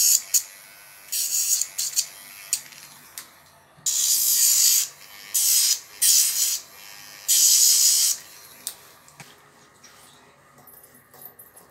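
Electric pet nail grinder filing a puppy's claws: short bursts of high-pitched grinding, about eight of them, each half a second to a second long, stopping about eight seconds in.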